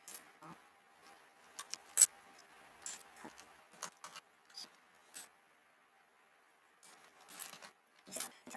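Irregular clicks and light clatter of plastic keyboard parts being handled, with one sharp loud click about two seconds in and a quick cluster of clicks near the end.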